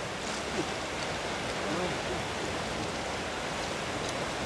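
River water rushing steadily, with faint voices briefly in the first two seconds.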